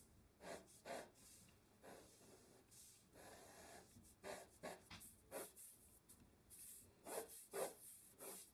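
Faint pencil strokes scratching on drawing paper as a triangle is sketched: a series of short lines with brief pauses between them, one of them longer about three seconds in.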